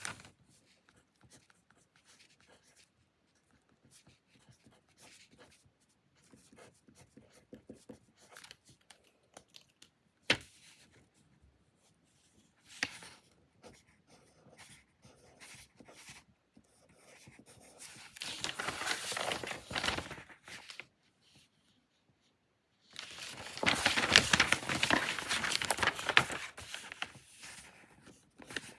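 Desk work sounds: paper and stationery being handled, with faint scattered taps, a sharp click about ten seconds in, then two spells of rustling and crinkling. The second, from about 23 to 27 seconds, is longer and louder.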